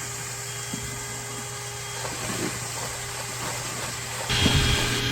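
Electric motor of dryer vent cleaning equipment running steadily with a constant hum. It gets louder, with some knocking, about four seconds in.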